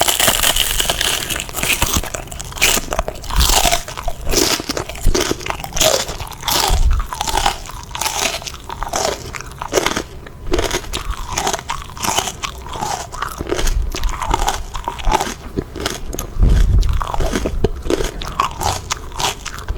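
Close-miked biting and crunchy chewing of a raw green pepper, with many crisp crunches in quick succession.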